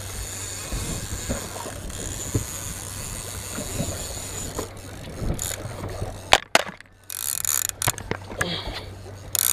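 Conventional fishing reel working while a fish is fought on a bent rod, giving mechanical reel clicking over a steady low hum. There are loud knocks about six and a half seconds in as the gear is grabbed right at the microphone.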